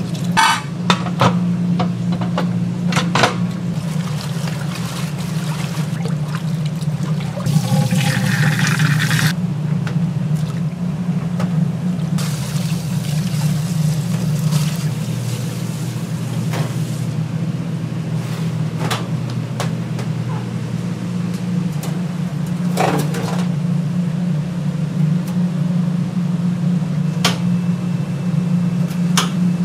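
Kitchen work: water running and splashing, with scattered knocks and clinks over a steady low hum.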